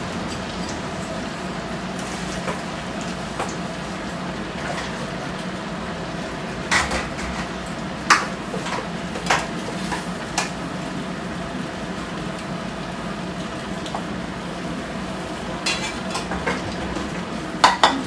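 Oil sizzling steadily in a steel kadai as a potato chop deep-fries, with several sharp clinks of a metal spatula against the pan, a cluster in the middle and a couple more near the end.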